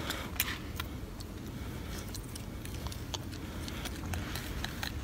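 Golden snub-nosed monkey picking at and eating small bits of food, making scattered faint clicks and ticks over a steady low background rumble.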